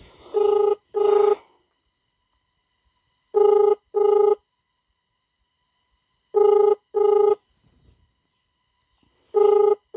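Phone ringback tone playing from a smartphone's loudspeaker: a double ring repeated about every three seconds, four times, as an outgoing call goes unanswered.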